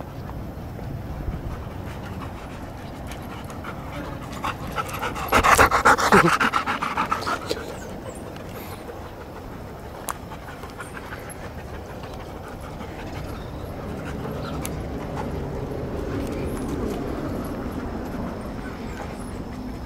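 Dogs panting. The panting is loudest as a close run of quick breaths about five to seven seconds in.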